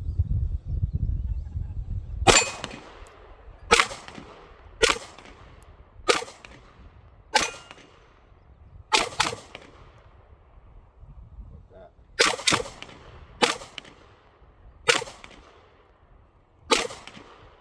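Canik TP9 9mm pistol fired about twelve times with FMJ rounds at an unsteady pace, including two quick double shots, each shot trailing off in a brief echo; every round cycles without a malfunction. A low rumble comes before the first shot.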